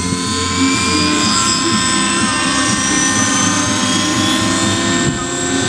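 Radio-controlled model helicopter lifting off and climbing, its rotor blades chopping over a steady high whine that shifts in pitch.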